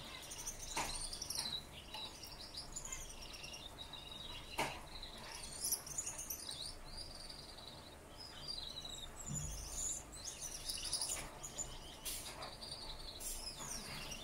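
Red-headed male Gouldian finch singing: several bouts of soft, high, buzzy warbling notes mixed with short clicks.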